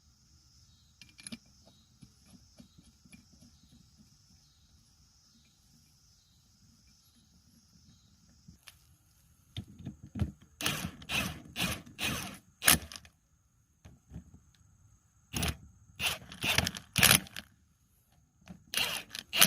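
Socket ratchet tightening the mounting bolts of a C5 Corvette's new rear wheel bearing hub, in three runs of quick ratcheting strokes from about halfway in, after a quiet stretch.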